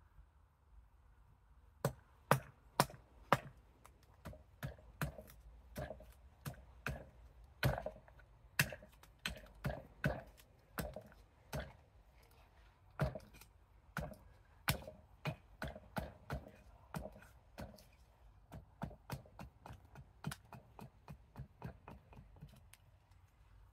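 Fadir 860 g carving axe chopping into an ornamental cherry spoon blank stood on a chopping block: a run of short, sharp chops, about two a second, starting about two seconds in.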